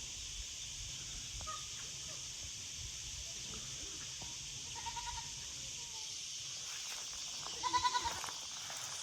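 Goat bleating once near the end: a short, quavering bleat. A steady faint high hiss lies underneath.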